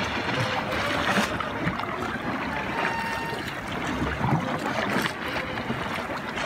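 Kayak paddles dipping and splashing in calm sea water, with a steady rush of water and wind noise and a few sharp drips.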